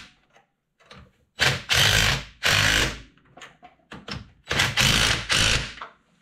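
Cordless impact gun hammering in two bursts of about a second and a half each, with a few short blips between them, as it tightens the nut of a clamp-style tool onto an inner tie rod.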